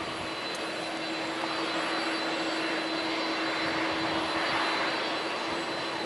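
Jet airliner engines running in a steady rush of noise, swelling slightly a few seconds in. Under it runs a constant electrical hum from a faulty microphone.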